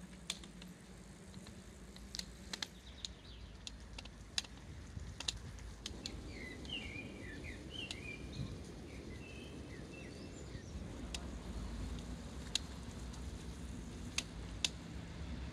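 Bicycle riding along a path: a steady low rumble from rolling and wind, with scattered sharp clicks and rattles. Birds chirp for a few seconds around the middle.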